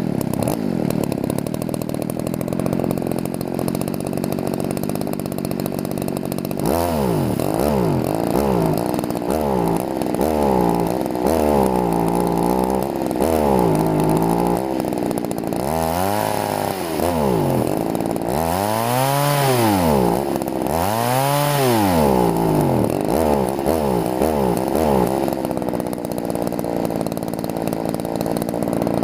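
Poulan two-stroke chainsaw engine idling, then revved up and let fall back repeatedly, about ten throttle blips, before settling back to idle near the end.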